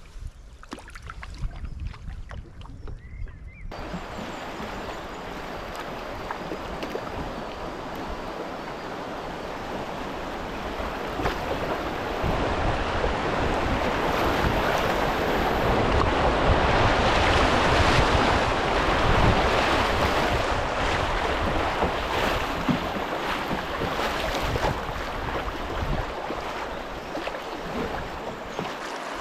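Low wind rumble on the microphone for the first few seconds. Then the rushing hiss of river rapids around a canoe running them, swelling to its loudest about two-thirds of the way through and then easing, with wind buffeting the microphone.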